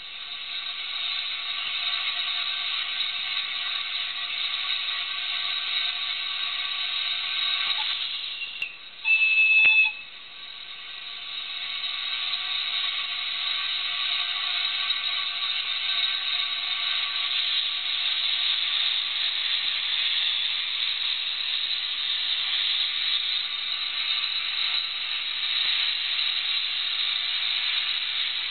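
Andrew Barclay saddle-tank steam locomotive hissing steam steadily, with one short, loud whistle blast about nine seconds in to signal departure. Later, steam blows from the open cylinder drain cocks as it starts to move off.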